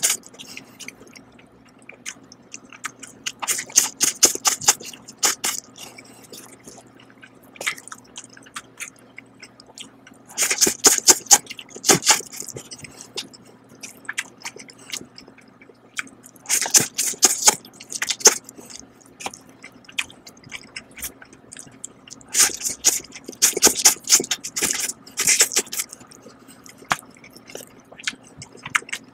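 A person slurping and chewing instant noodles up close: four bouts of wet, hissing slurps about six seconds apart, with softer chewing between them.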